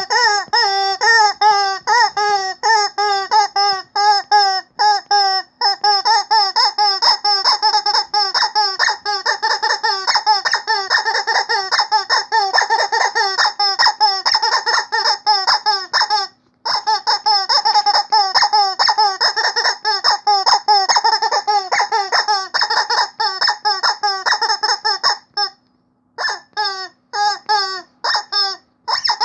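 Rubber chicken squeaky toy squeezed over and over, giving a rapid run of short, high squeaks that sound almost like laughter. It stops briefly twice, about halfway through and again near the end.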